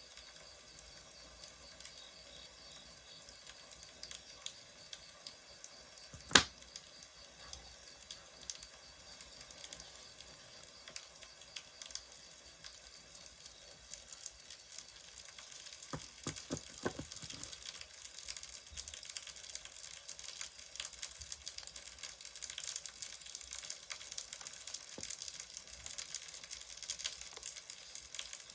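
Wood fire crackling: a steady hiss scattered with small pops. One sharp, loud snap comes about six seconds in, and a few softer knocks follow around the middle.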